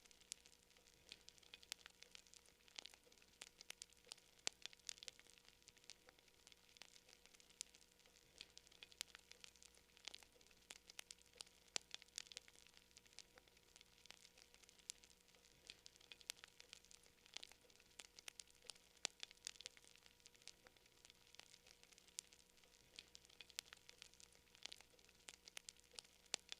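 Campfire burning: quiet, constant crackling with many small sharp pops a second and no pause.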